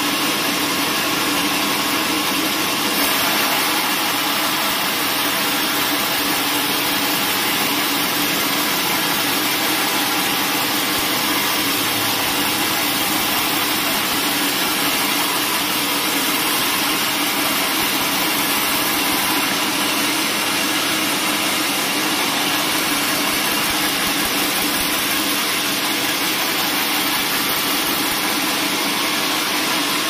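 Horizontal bandsaw mill running and sawing lengthwise through a thick hardwood cant: a steady mechanical drone from the mill's drive, with the noise of the band blade cutting through the wood.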